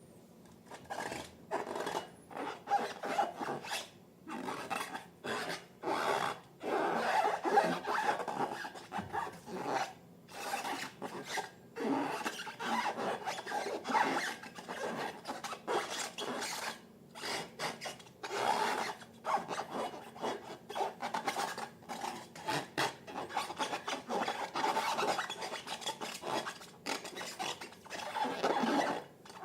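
Slime being mixed and worked by hand, with repeated irregular rubbing and scraping strokes.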